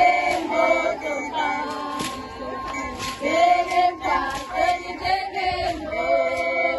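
A group of voices singing together, a choir-like song.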